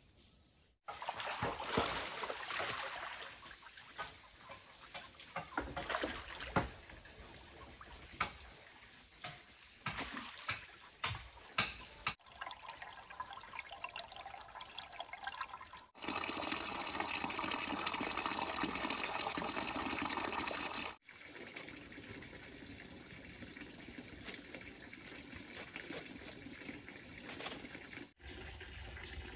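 Water trickling and running, in several short shots joined by sudden cuts. Scattered sharp knocks and clicks sound in the first third.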